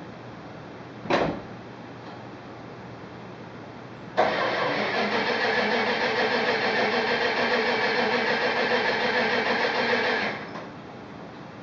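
1969 Dodge Super Bee V8 being cranked on its starter in a start attempt, with a brief burst about a second in, then a steady run of about six seconds that stops abruptly. The car has sat for about a month and its carburettor needs a rebuild, so it is slow to start.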